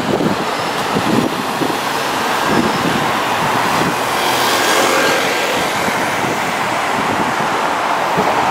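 City street traffic: a car passing close by and a box truck pulling away through the intersection, with engine and tyre noise.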